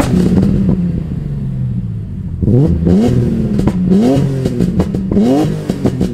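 BMW E46 M3's S54 straight-six under hard acceleration. The revs wind down for a couple of seconds, then climb, drop at an upshift and climb again three times in quick succession, with a few sharp cracks near the end.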